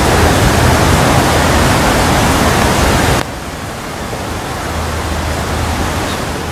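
A steady, loud rushing noise with no distinct events in it, dropping to a lower level about three seconds in.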